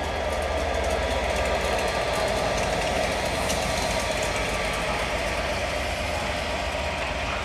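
EWS Class 67 diesel locomotive, a V12 two-stroke, running steadily as it hauls a train of Mk1 coaches past, along with the noise of the train on the rails.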